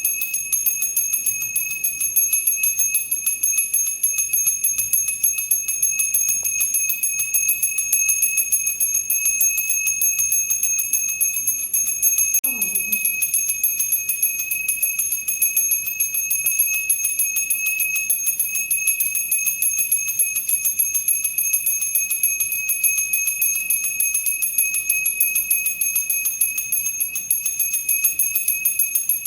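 Temple bell rung rapidly without pause, its high ringing tones held steady under a quick run of strikes.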